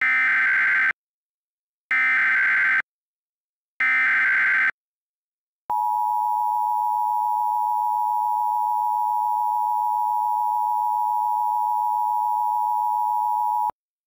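Emergency Alert System SAME header: three short bursts of digital data tones about a second apart, followed by the two-tone EAS attention signal held steady for about eight seconds, then cut off. Together they mark the start of a new emergency alert broadcast.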